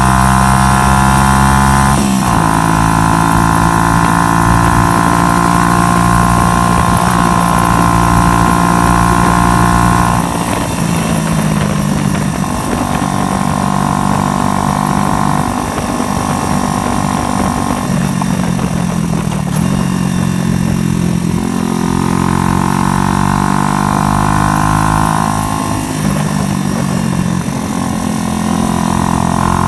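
A 125cc motorcycle engine running under way. It holds a steady pitch for several seconds at a time, then drops and climbs again several times.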